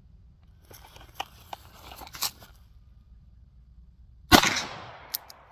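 Clothing rustle and a few clicks as a 6-inch Smith & Wesson 686 revolver is drawn from under a jacket, then a single .357 Magnum shot about four seconds in, with a long decaying echo, followed by one sharp click.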